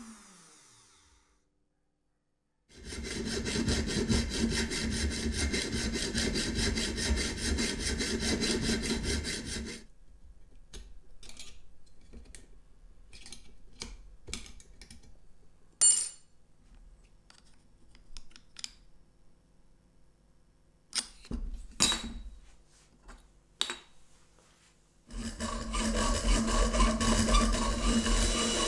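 Hand file rasping on an aluminium tube in quick, even strokes for several seconds, then scattered light clicks and knocks of tool handling. Near the end a small power tool starts and runs steadily with a faint whine.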